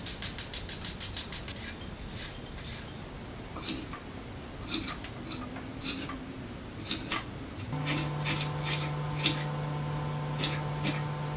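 Vegetable peeler scraping down a carrot in quick strokes, about five a second, for the first few seconds. Then a kitchen knife slicing carrots and dicing potatoes on a ceramic plate, with scattered sharp clicks of the blade against the plate. A faint steady hum comes in about eight seconds in.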